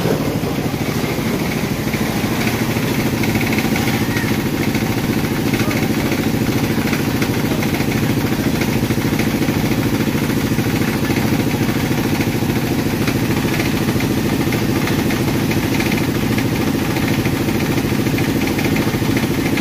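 A small engine or motor running steadily with an even, rapid pulse and no change in speed.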